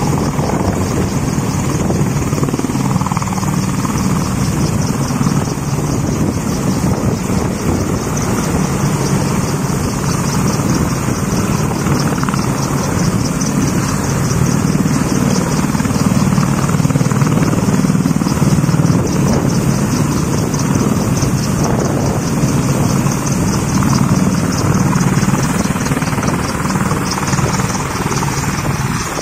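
AH-64 Apache attack helicopter running steadily, its rotor blades beating in a rapid, even rhythm over the engine noise, a little louder around the middle.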